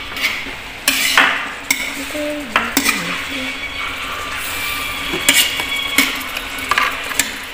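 Metal spatula scraping and knocking against a non-stick electric wok while stir-frying bitter melon and pork. Repeated sharp clicks and scrapes sound over the food's steady sizzle.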